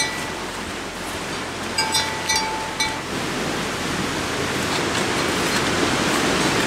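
Small bell on a calf's collar clanking several times as the calf walks, about two seconds in. Under it runs a steady rushing hiss that grows slowly louder.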